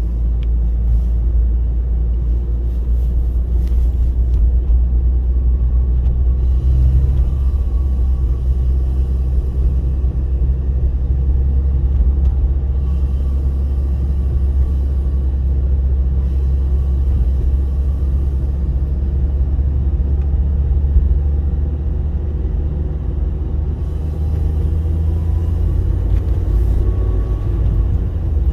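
2006 Toyota Yaris engine running, a steady low rumble with a faint whine that comes and goes.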